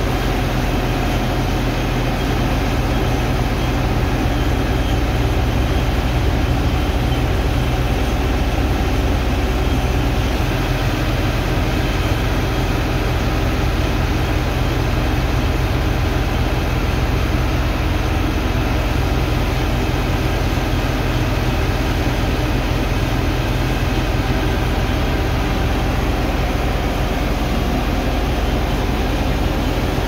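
Engine of the sand-unloading dredge pump running steadily with a low drone, under a continuous rush of pumped water and sand slurry.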